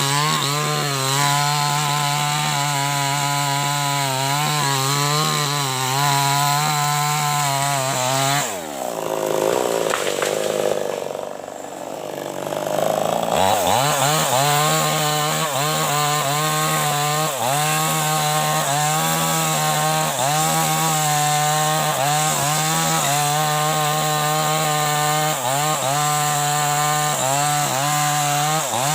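Two-stroke Maestro 6500L chainsaw running at high revs, cutting into acacia wood, its pitch wavering under load. About eight seconds in the revs drop off and the saw runs quieter for a few seconds, then it revs back up and carries on cutting.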